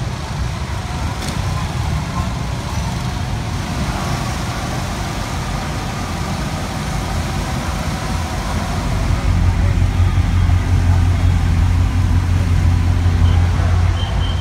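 Low car engine rumble, growing louder and steadier about two-thirds of the way through, over faint crowd chatter.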